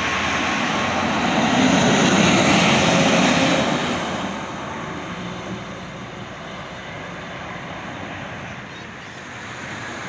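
A large vehicle passing close by at speed: a rush of engine and tyre noise that builds, is loudest about two to three seconds in, and fades after about four seconds.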